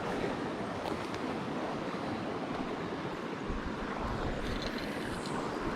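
Steady rush of creek water running over rocks, with wind buffeting the microphone as a low rumble from about halfway through.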